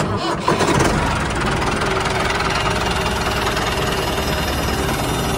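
A tractor engine runs steadily with a rapid knocking beat, slightly louder in the first second, for the miniature toy tractor driving across sand.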